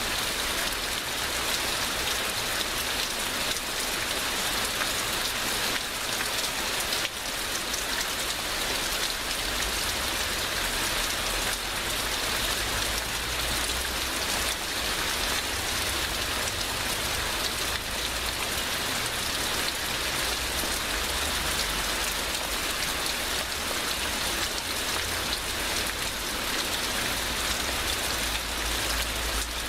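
Heavy rain, a steady downpour falling evenly with a low rumble underneath.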